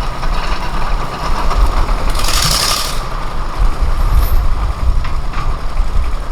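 Engine running steadily with a low rumble and a steady whine, with a short hiss about two seconds in.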